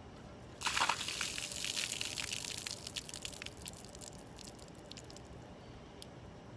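A bucket of water dumped over a person's head: a sudden splash and gush about half a second in, streaming onto him and the paving, tapering over a few seconds into scattered drips.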